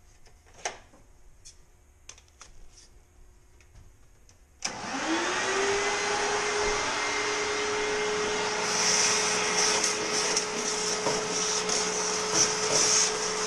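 A few faint clicks, then a vacuum cleaner switches on about a third of the way in. Its motor whine rises quickly to a steady pitch, and it runs on with a steady suction hiss that varies as it sucks loose debris out of a fuel tank.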